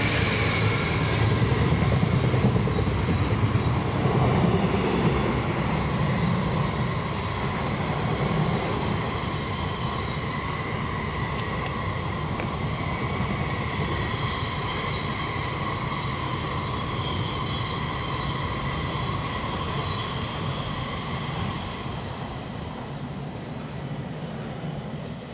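Container freight train hauled by a JR Freight EF210 electric locomotive passing close by. It is loudest in the first few seconds, then the wagons go by with a steady rumble and a whining tone from the wheels on the rails, fading over the last few seconds.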